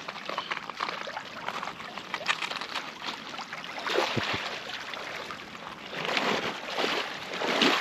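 Shallow sea water splashing and trickling as a person wades and splashes through it, in irregular splashes that are loudest about four seconds in and near the end.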